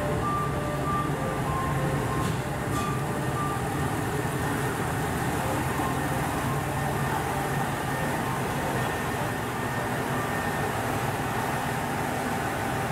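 KiHa 189 series diesel multiple unit creeping into the platform and drawing to a stop, its diesel engines running with a steady low hum. In the first three seconds or so an electronic chime sounds, alternating between two pitches.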